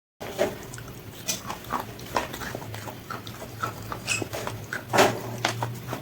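Close-up crunching and chewing of crispy fried chicken: irregular crisp crackles with a few louder cracks, the loudest about five seconds in.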